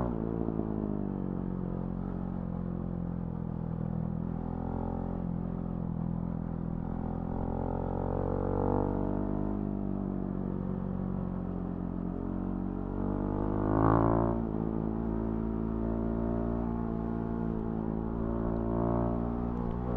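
Husqvarna Svartpilen 701's single-cylinder engine through a Remus NXT exhaust, riding along with the revs slowly rising and falling. A short, sharp rev rise and fall about two thirds of the way through is the loudest moment.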